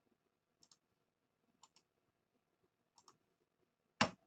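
Computer mouse clicking: three faint pairs of clicks about a second apart, then a short, louder knock near the end.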